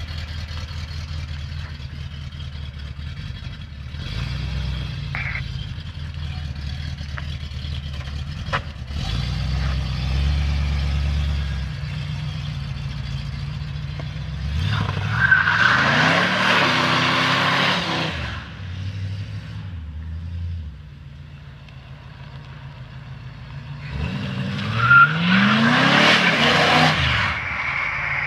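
Oldsmobile 350 Rocket V8 with a freshly rebuilt Quadrajet four-barrel carburettor idling, then revved twice, about halfway through and again near the end, each time rising in pitch and settling back to idle.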